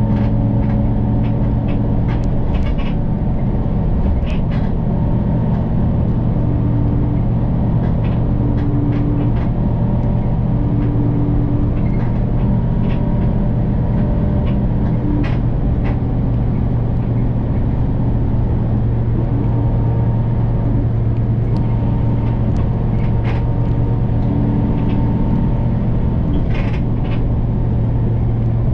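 City bus running along the road, heard from inside the cabin: a steady low engine and drivetrain drone with road noise, and scattered light clicks and rattles.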